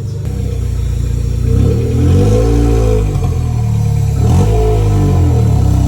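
Car engine running and being revved, its pitch rising and falling back twice.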